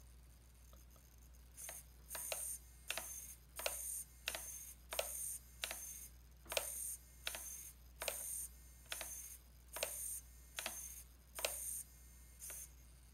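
KST X08 v5.0 micro servo swinging its arm fast from one end of its travel to the other, about fifteen times: each sweep is a short high-pitched motor whine under half a second long, with a sharp click where it starts and stops. The servo is running at 3.8 volts, its lowest rated voltage.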